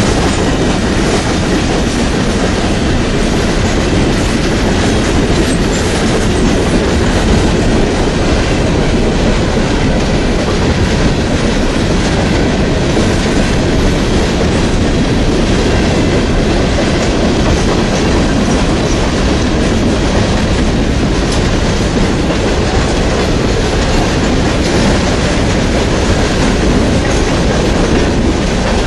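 Freight train of hopper cars rolling past: a steady, loud rumble with the clatter of steel wheels on the rails.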